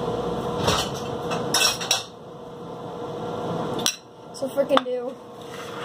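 Ceramic dishes clinking and knocking as a bowl is fetched and handled: a run of sharp clinks over the first two seconds, then another knock about four seconds in as the bowl is set down.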